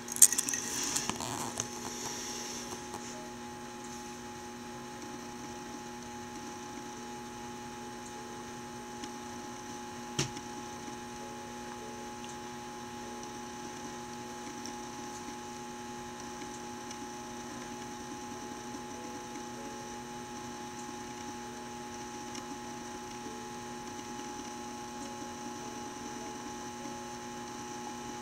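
Steady electrical hum with several constant tones, with no voices. It opens with a sharp knock and a couple of seconds of noisy clatter, and a single click sounds about ten seconds in.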